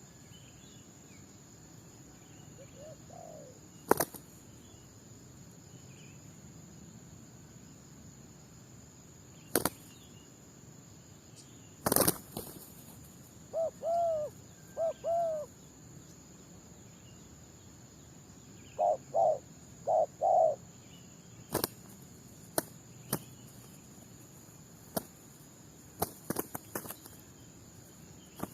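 Spotted doves cooing in short groups of low, rounded notes, one faint coo and then runs of three and four. Several sharp clicks or knocks are the loudest sounds. A steady high insect trill runs underneath.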